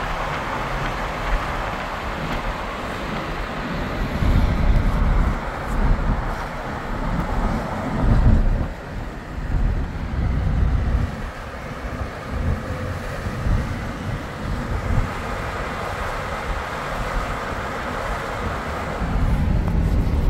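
Road traffic noise: a steady hiss of passing vehicles with irregular bursts of low rumble.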